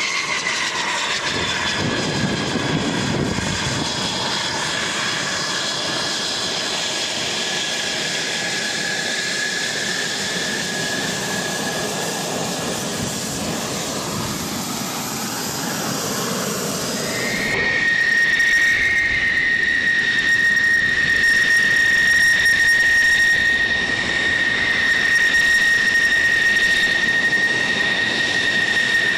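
F-16 fighter jets' turbofan engines running while taxiing: a steady roar with a high whine that slowly falls in pitch. About 17 seconds in it switches abruptly to a louder, steady high-pitched turbine whine.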